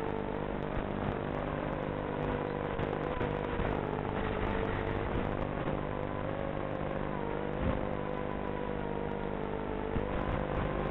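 Brushless motors of an Eachine Wizard X220 racing quadcopter whining in flight, the pitch wavering up and down as the throttle changes.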